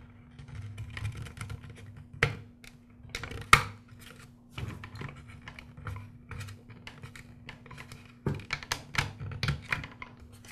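Handling of a Black and Decker CST1200 trimmer's plastic motor housing while its wire edge guide is fitted: scattered plastic clicks and knocks, with sharper clicks about two and three and a half seconds in and a quick run of clicks near the end, over a faint steady hum.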